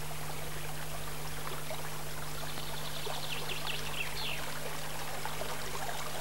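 Water flowing steadily along a narrow stone-lined ditch, an even rushing trickle. A steady low hum runs underneath, and a few short high chirps come a little past halfway.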